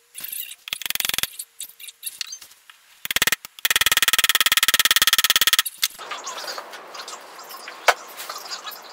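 Hand tools working on a metal gearbox casing: short runs of very rapid, even ratchet clicking, the longest about two seconds, then a rough steady scraping noise with one sharp knock near the end.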